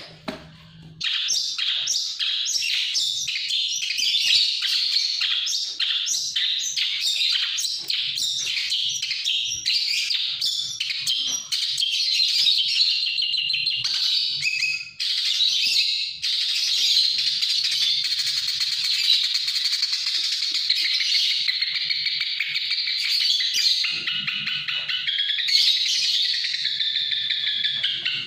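Long-tailed shrike (pentet) singing: a fast series of sharp, high chirps, several a second, that runs together into a continuous twittering about halfway through and ends in gliding whistled notes.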